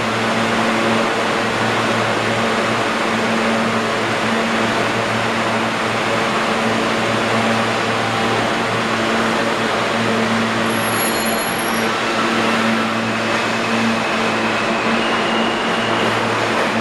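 R160B subway train standing at the platform, its air-conditioning and onboard equipment giving a steady hum. In the last few seconds the traction motors start a whine that steps upward in pitch as the train pulls out.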